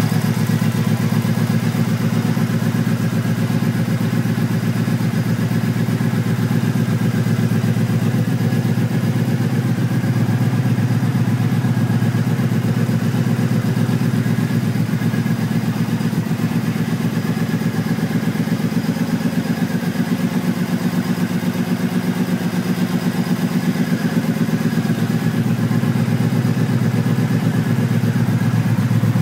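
2009 Triumph Speedmaster's fuel-injected 865 cc parallel-twin running steadily at idle through stock 2008 pipes with bored-out baffles. This is its first run after winter, warming up.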